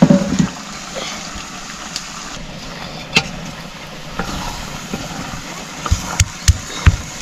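Food sizzling in a cooking pot with a steady hiss, then from about six seconds in a run of sharp knocks, about three a second.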